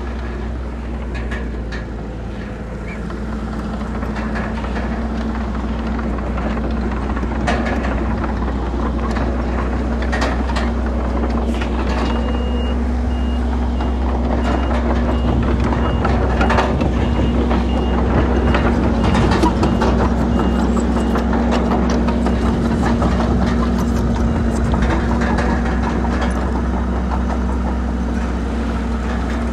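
Heavy earthmoving machinery at work: a diesel engine runs steadily, with scattered clanks and knocks. A reversing alarm beeps for about twelve seconds in the middle.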